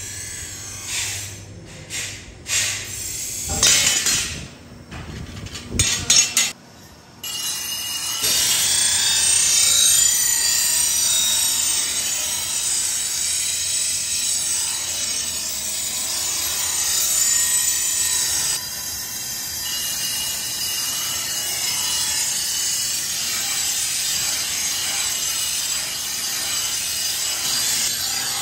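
Steel cleaver blade, forged from truck leaf spring, held against a belt-driven grinding wheel: a steady grinding starts about a quarter of the way in, with its high edge softening about two-thirds through. Before the grinding there are a few irregular loud knocks and scrapes.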